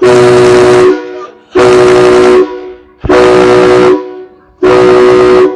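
Nathan Airchime K3HA three-chime train horn, mounted on a car, blown in four short blasts about a second and a half apart. Each blast is a steady multi-note chord, very loud.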